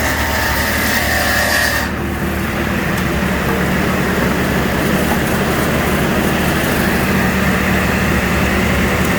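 TsM-120 multi-blade circular rip saw machine running on test. A high whine with hiss drops away suddenly about two seconds in, leaving the steady hum of the motor and spinning blades.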